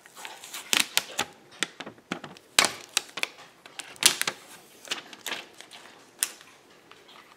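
Irregular clicks and taps of a black iPhone 7 being handled and turned over in the hands, sharpest and densest in the first half and thinning out near the end.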